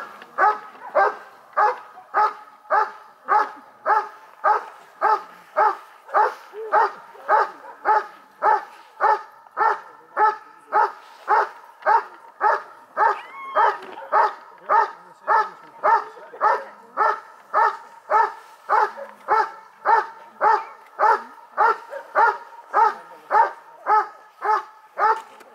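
German Shepherd dog barking steadily and rhythmically, about two barks a second without pause, at a helper hidden in a hiding blind: the hold-and-bark of a protection-dog trial, the dog keeping the helper in place until the handler arrives.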